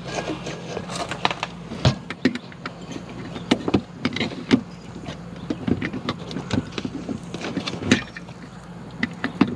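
Handling noise from a plastic multi-outlet plug adapter being worked against a wall outlet in a tight RV refrigerator compartment: a string of irregular clicks, knocks and scrapes as the adapter, too wide for the spot, fails to go in. A steady low hum runs underneath.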